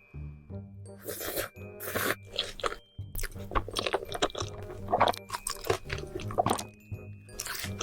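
Close-miked eating: mouthfuls of noodles slurped and chewed in quick, wet, crunchy bursts, over background music with sustained tones.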